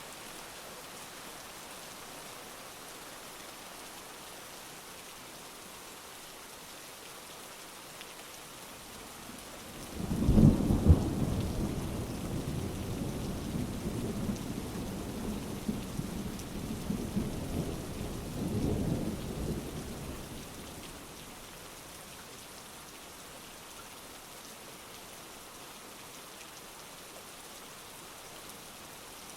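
Steady heavy rain falling, with a sudden thunderclap about a third of the way in that rolls on as a low rumble for around ten seconds, swelling once more before it fades back into the rain.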